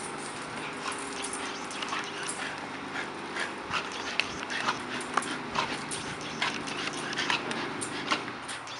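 Two American bully dogs growling steadily as they tug together on a hanging spring-pole rope, with many short sharp clicks and scuffs throughout.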